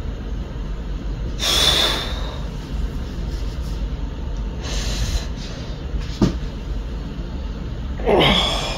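Steady low rumble of room noise, with two sharp, loud exhales through the nose, about a second and a half in and near the end. The second drops in pitch like a short grunt. A softer breath comes around five seconds, and a single click just after six.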